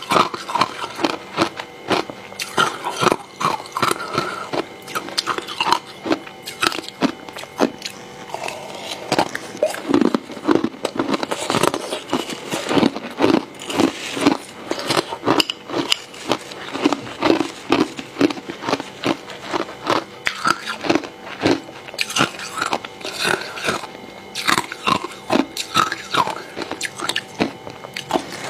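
Close-miked crunching and chewing of hard flavoured ice, with many sharp crunches in quick, irregular succession.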